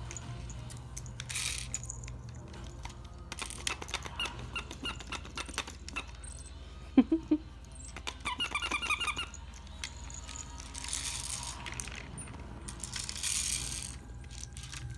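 Plastic baby activity-ball toy rattling and clattering as a pet marmoset grabs and handles it. Two sharp knocks come about halfway through, followed at once by a quick run of about eight short squeaks.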